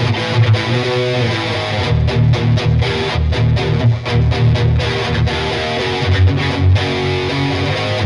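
Ibanez GRG121SP electric guitar with humbucking pickups, played through a distorted tone: a heavy riff of chords and single notes with many short, sharp stops in the middle of the passage.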